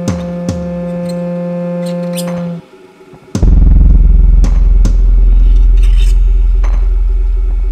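Droning electronic film score: a steady pitched drone with scattered clicks, which cuts out for under a second about two and a half seconds in. A much louder, very deep bass drone then starts and slowly fades.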